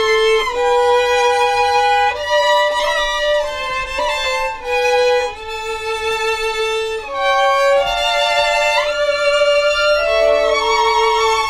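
Three violins playing the slow opening of a csárdás: long held notes in harmony, with a sliding rise in pitch about nine seconds in.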